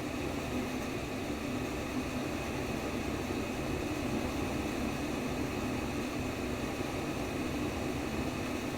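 Steady white noise for baby sleep: an even, unchanging hiss heaviest in the lower middle range.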